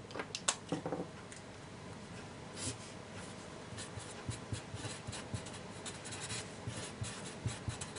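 Felt-tip marker writing on paper: a quick run of small scratchy strokes and squeaks. A few sharp clicks in the first second, as a pen is set down and the marker picked up.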